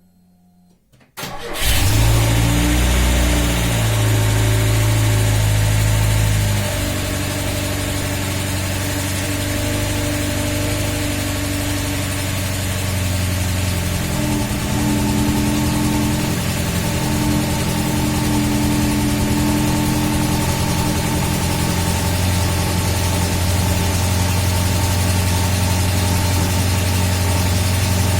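A classic VAZ (Zhiguli) four-cylinder engine starting about a second in and running at a fast idle, then settling to a lower, steady run about six seconds in. This is the test run after the rear axle shaft bearing has been reassembled, with no clear bearing rattle standing out.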